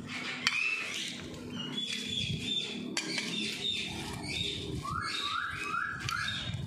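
Rose-ringed parakeets calling with short chirps and squawks, including a quick run of four rising calls near the end, with a few sharp clicks.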